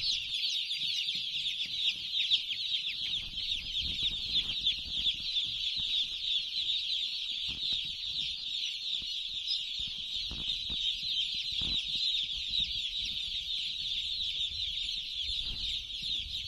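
A large flock of broiler chickens calling all at once: a dense, unbroken chorus of many high peeps and chirps, with a few faint low knocks here and there.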